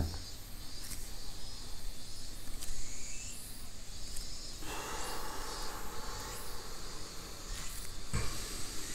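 A person taking a loud, hissing breath in, lasting about three seconds from around halfway through: a participant ending a long breath hold.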